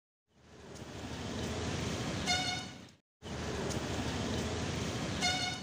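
Street traffic noise with a short, high vehicle horn toot. The sound cuts out for a moment about three seconds in, and the same noise and toot come again near the end.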